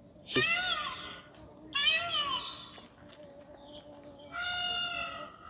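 Indian peafowl calls: two short loud calls that rise and fall in pitch, about a third of a second and just under two seconds in, then a longer call held at one pitch near the end.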